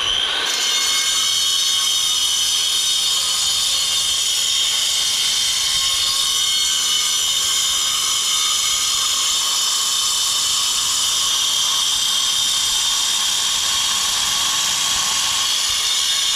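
Electric angle grinder cutting through a concrete block, its disc running at a steady high-pitched whine with a hiss of grinding.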